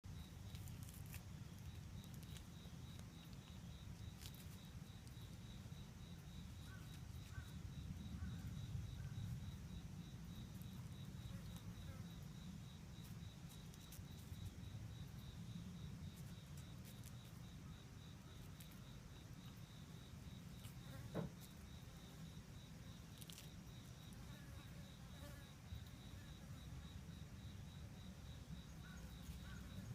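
Faint, steady insect trilling with an even pulse, over a low rumble, with a single sharp knock about two-thirds of the way through.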